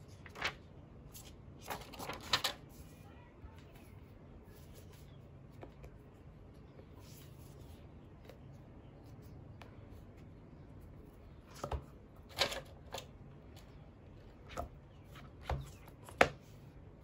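Hands handling a tablet folio case: scattered taps, clicks and rustles as fingers rub the stickers on its cover and fold the cover over, the sharpest click near the end.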